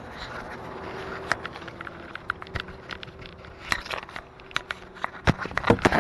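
Camera being handled and rubbed against clothing: irregular clicks, knocks and rustles, thickest and loudest near the end. Under them runs a faint steady hum from the rebuilt 5.3 L Vortec V8 idling.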